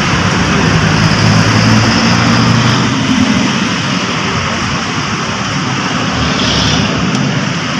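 A loud, steady mechanical drone, like an engine running, with a low hum that is strongest in the first few seconds.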